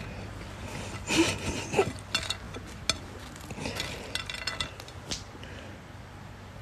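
A scatter of light clicks and clatter, thickest and loudest about a second in, thinning out after about five seconds.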